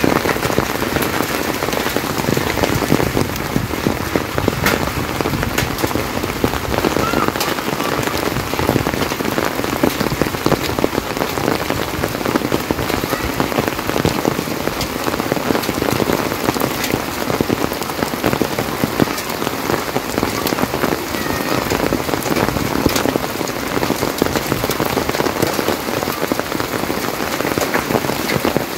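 Heavy rain falling steadily, a dense patter of countless drops striking surfaces.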